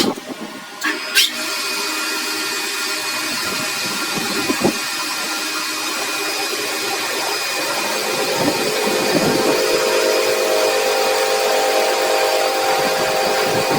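A power tool running steadily, with a few sharp knocks about a second in.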